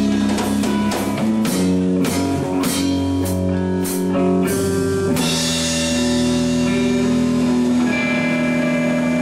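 Rock music with guitar and drum kit. About halfway through the drum hits stop and a guitar chord is held, ringing on.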